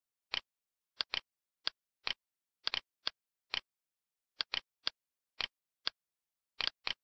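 Computer mouse clicking: sharp clicks at an irregular pace, some in quick pairs, with dead silence between them.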